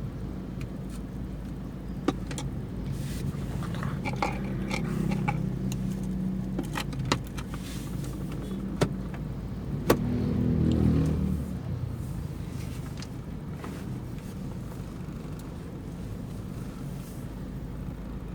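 Toyota Fortuner's 2KD-FTV 2.5-litre four-cylinder turbodiesel running, heard from inside the cabin as a steady low drone. About ten seconds in, its note rises and swells briefly under acceleration. A few sharp clicks stand out over it.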